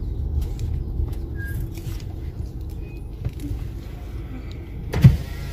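Car engine idling, a steady low rumble heard from inside the cabin, with a few faint clicks and one loud thump about five seconds in.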